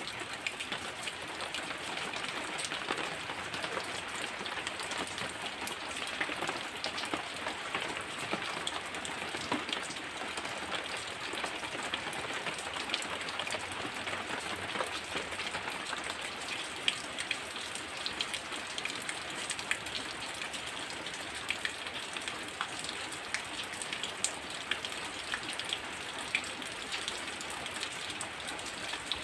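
Heavy rain falling steadily, a dense even hiss full of small individual drop ticks.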